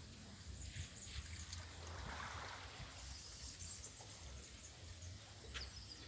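Faint outdoor ambience by calm water: a low rumble of light wind on the microphone, a soft wash of water about two seconds in, and a few faint ticks.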